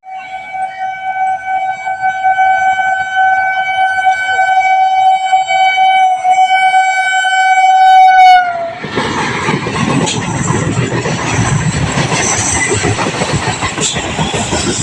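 An Indian Railways train horn sounds one long, steady blast of about eight seconds, sagging in pitch as it stops. It is followed by the loud rumble and rattle of the train running past.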